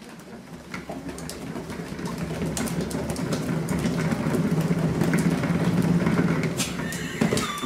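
Cat exercise wheel spinning as a kitten runs in it: a rolling rumble that builds up, runs steadily, and eases off near the end, with scattered light clicks.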